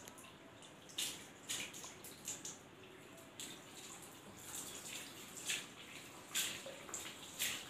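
Water poured from a mug over long hair, streaming and splashing onto the floor in a series of short splashes, as the hair is rinsed.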